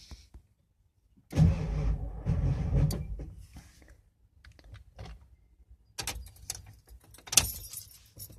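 1994 Ford F350's 7.3L Power Stroke diesel briefly cranked by the starter, for about a second and a half, without firing: a crank-no-start. Scattered clicks follow, with a short sharp burst near the end.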